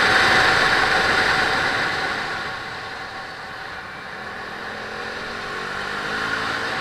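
KTM RC390's single-cylinder engine under way, heard through heavy wind rush at a helmet camera. It eases off about two seconds in, then the engine note climbs again as the bike accelerates.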